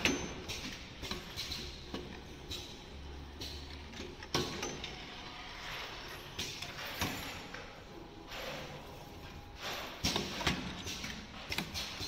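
Automatic stuffed grape leaf rolling machine running: irregular clacks and knocks from its moving mechanism, a few seconds apart, with short hisses between them.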